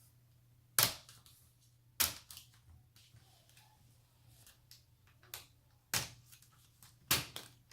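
Plastic clips of a laptop's screen bezel snapping loose as it is pried off with a credit card: four sharp snaps a second or more apart, with a few fainter ticks between.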